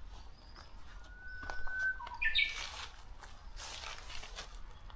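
Birdsong: one bird holds a whistled note for about a second, then gives a quick run of higher notes, while other birds chirp briefly. A short rustling noise follows near the end.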